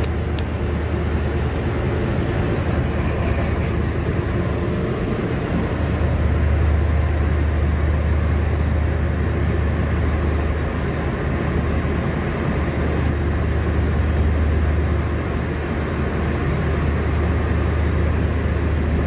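Fishing trawler's engine running with a steady low drone.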